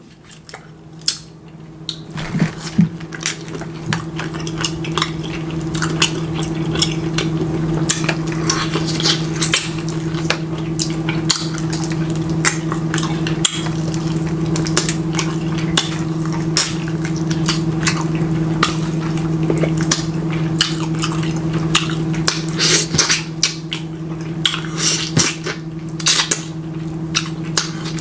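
Close-up eating sounds of chicken eaten by hand: chewing, lip smacks and finger licking, heard as many sharp wet clicks. Under them is a steady low hum that comes in about a second in and grows louder over the next few seconds.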